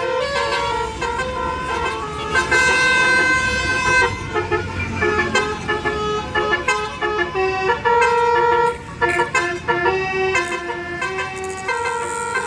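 Telolet basuri musical air horn on a QQ Trans tour bus playing a fast tune, mostly short notes with a few held ones, several tones sounding at once.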